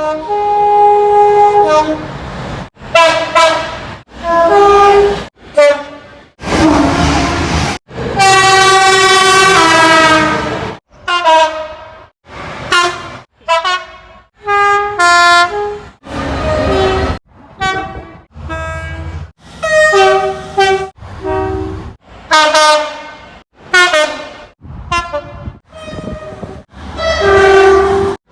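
Rapid succession of British railway train horns, about twenty blasts of one to three seconds each, many sounding two notes. Each blast cuts off abruptly into the next, and one longer, sustained blast comes about a third of the way through.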